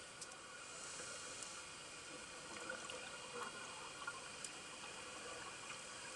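Faint underwater sound: a steady hiss with bubbling and a few scattered sharp clicks.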